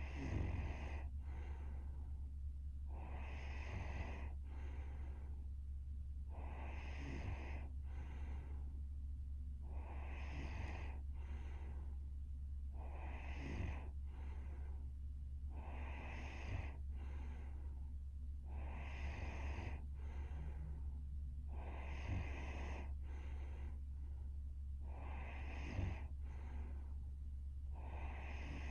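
A sleeping young woman breathing slowly and regularly with a light snore, about one breath every three seconds, each a longer draw followed by a shorter one. A steady low hum runs underneath.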